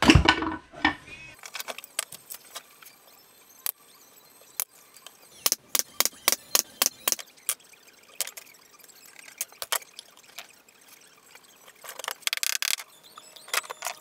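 Hand work on a birdhouse's copper and wood cladding: a loud knock at the start, then scattered sharp clicks of small copper pieces and tools, with a quick run of about eight clicks in the middle and a brief scrape near the end.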